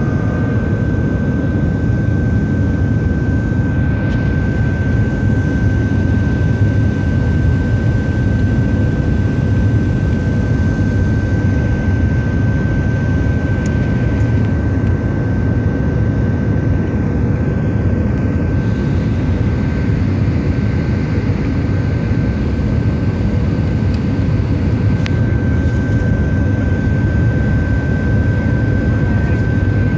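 Steady cabin roar inside a Boeing 737-700 on its landing approach, from its CFM56-7B jet engines and the rush of air past the fuselage, with a thin, steady whine held throughout.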